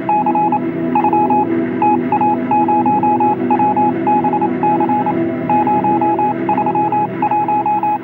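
Electronic beeping sound effect: short, high tones repeated in quick, uneven runs, like a data or radio transmission signal, over a steady low electronic hum, with a thin, narrow radio-like quality.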